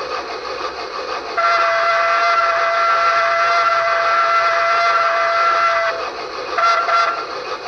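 Steam-locomotive sound from a Tsunami2 digital sound decoder in a model rotary snow plow: a chime steam whistle blows one long blast of several tones together, then a short toot about a second later, over a steady hiss.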